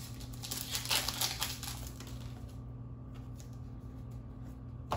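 Foil trading-card booster pack crinkling as it is torn open for the first couple of seconds, then quieter rustling of the cards being slid out and handled, with a sharp tap near the end.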